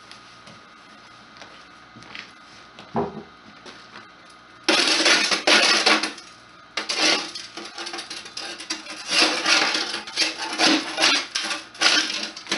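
Soot being scraped and knocked out of a black stovepipe elbow over a metal ash can: a couple of light knocks at first, then loud, rough scraping and rattling in irregular strokes from about five seconds in.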